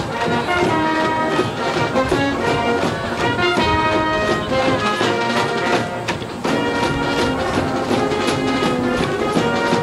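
High school brass band playing a baseball cheering tune, brass carrying the melody over a steady beat.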